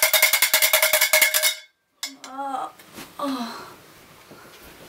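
A cowbell rung rapidly and continuously as a wake-up alarm, many clanging strikes a second, cutting off suddenly about a second and a half in. Brief voice sounds follow.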